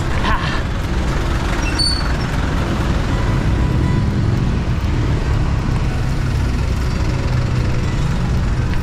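Congested road traffic: the engines of jeepneys, trucks and cars running close by in a steady low rumble, with a brief high-pitched squeal about two seconds in.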